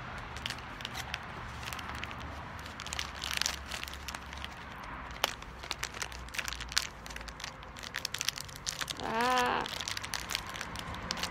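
Plastic fruit-snack pouch crinkling, with irregular small clicks and crackles as a toothpick pries out old fruit snacks that are stuck together and to the plastic. A short hummed voice sound comes about nine seconds in.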